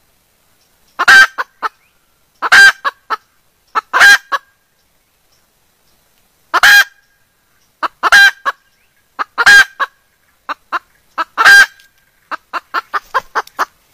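Junglefowl hen calling to attract a mate. Each call is a loud, harsh note followed by one or two shorter notes, repeated about every one and a half seconds, and ends in a quick run of short clucking notes near the end.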